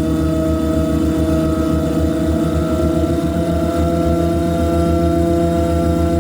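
Loud harsh-noise drone made by electronic noise mangling: several steady held tones over a rapid low pulsing.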